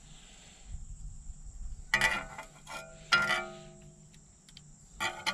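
Metal clinks as a connecting-rod cap and its bearing shell are worked loose with a screwdriver on an opened engine's bottom end. Three sharp clinks, about two, three and five seconds in, each ringing briefly.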